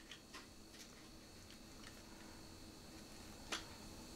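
Faint light clicks of plastic toy vehicle parts being handled as a wheel is pressed onto its axle, with one sharper click about three and a half seconds in.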